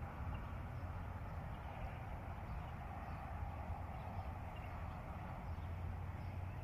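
Quiet, steady outdoor background noise: a low hum under a soft hiss, with a few faint ticks.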